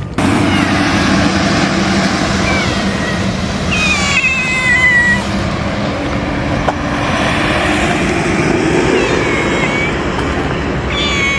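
Kitten meowing several times in high-pitched calls, the longest about four seconds in, over a steady background hum.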